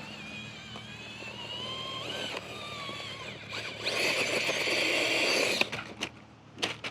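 RC rock-crawler buggy's electric motor and gearbox whining, the pitch rising and falling with the throttle, then a louder full-throttle burst of about two seconds. A few sharp knocks follow near the end as the rig tips over onto its roof.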